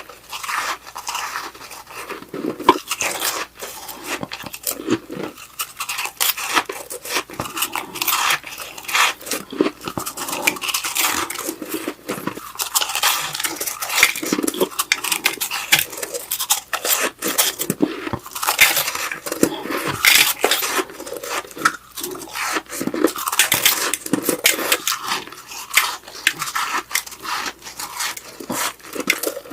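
Snow being bitten and chewed close to the microphone, a dense run of crisp, irregular crunches and crackles.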